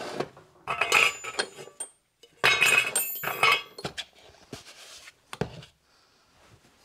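Small metal parts clinking and rattling as they are handled and moved about on a workbench, in two clattering spells of a second or so each, followed by a few scattered knocks.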